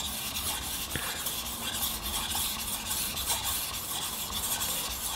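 Single-bevel Japanese kitchen knife being sharpened on a wet whetstone: the steel blade makes a gritty rasp as it is pushed back and forth over the stone in repeated strokes.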